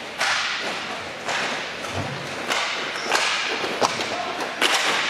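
Roller hockey play on an indoor rink: a run of sharp swishing scrapes about a second apart, from skates and sticks on the rink surface, with sharp clicks of sticks and puck in between.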